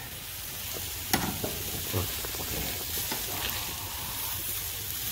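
Sausages and ribs sizzling on a charcoal grill, a steady crackling hiss, with a few sharp clicks of metal tongs turning the meat.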